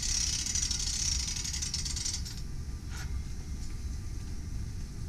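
S70 disc-spring starter on a Cummins NT855 being wound by its hand lever, a fast, dense rattle with hiss that stops about two seconds in as the springs reach the yellow mark. A steady low rumble runs underneath.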